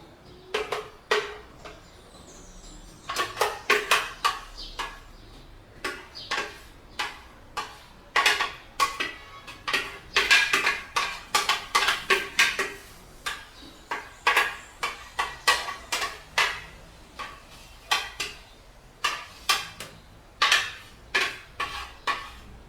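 A kitchen utensil knocking and scraping against a blender jar and a bowl in many short, irregular clinks, as the thick blended green sauce is scooped out into the bowl.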